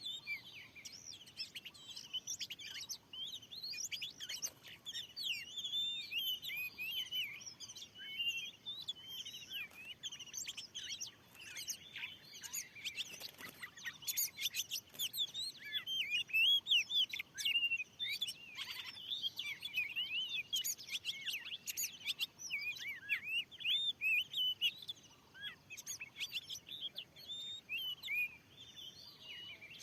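Oriental magpie-robin singing: a rapid, unbroken run of varied chirps and whistles, with a few sharp clicks in the middle.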